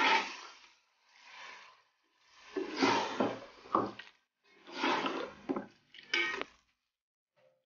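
Water being poured into a pot of frying beef mince and tomatoes, sizzling and splashing in a series of short bursts.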